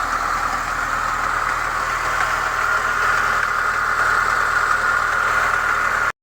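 Chevrolet Niva engine idling cold with a steady mechanical clatter, the knock that appears from cold and goes away once the engine is warm above about 60 degrees. It cuts off abruptly near the end.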